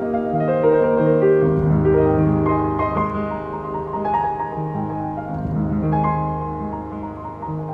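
Slow, gentle piano music: sustained notes and chords changing about once a second.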